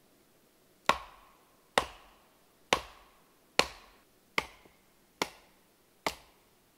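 Battoning: a wooden baton knocks seven times, a little under once a second, on the spine of a Skrama bush knife, driving the blade down through an upright log section to split it. The first four blows are the loudest.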